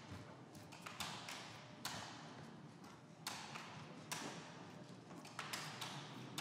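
Footsteps on a hardwood floor: sharp taps at a walking pace, roughly one a second, with a slight echo in the room.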